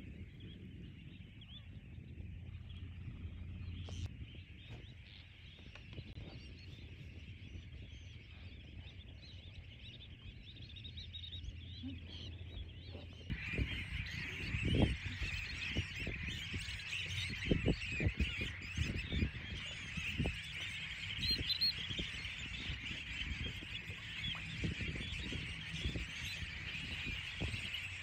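A large flock of gulls and shorebirds calling together in a dense, continuous chatter that turns louder about halfway through. A low rumble with scattered thumps runs underneath.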